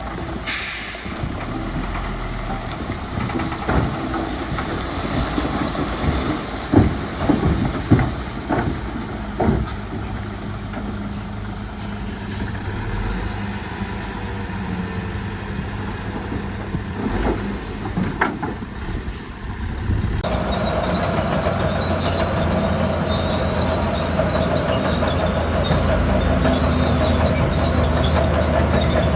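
Bulldozer at work: a diesel engine running under scattered metallic clanks and knocks for the first two-thirds. About 20 seconds in the engine grows louder and a steady metallic squeal, typical of steel crawler tracks, sets in and continues.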